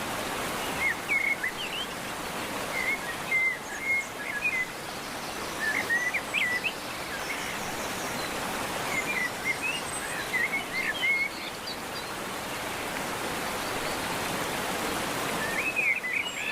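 Small birds chirping in short, quick clusters every few seconds over a steady rushing outdoor noise.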